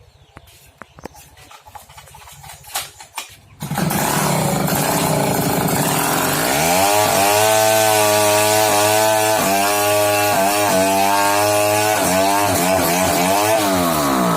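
Sawmill saw cutting a dried mahogany log: after a few faint knocks it cuts in suddenly about four seconds in with a loud rasping screech, soon joined by a screaming whine whose pitch sags and recovers several times as the blade takes the load, dropping away at the end.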